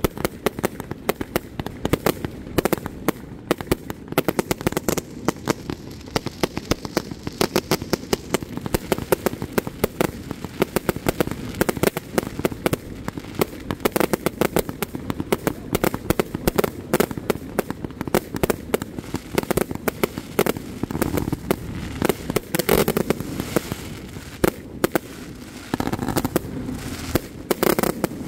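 Aerial fireworks shells bursting and crackling in a rapid, unbroken barrage of sharp bangs, many a second.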